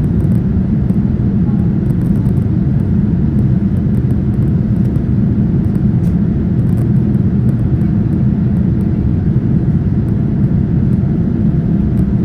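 Steady, loud roar of a Boeing 787-9's jet engines and airflow heard inside the passenger cabin, with no rise or fall in pitch or level.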